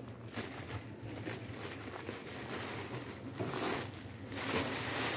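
Soft rustling and shuffling of handbags being moved about and picked out of a pile, a little louder a few seconds in.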